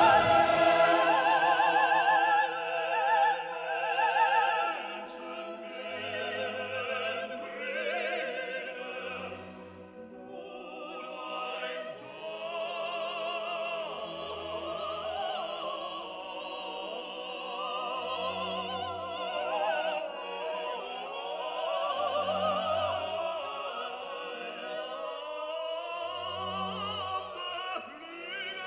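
Operatic singing with orchestra: a sung melody with strong vibrato over sustained strings, and a low bass note repeating every few seconds.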